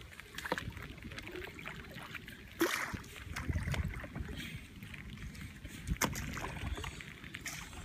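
Water splashing and dripping around a kayak as it moves through shallow floodwater, with a few sharp knocks.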